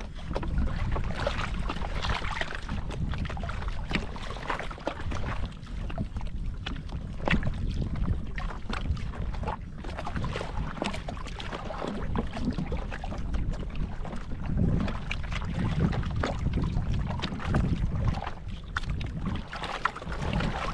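Small waves lapping and splashing against the hull and outrigger of a small wooden outrigger canoe, with wind rumbling on the microphone.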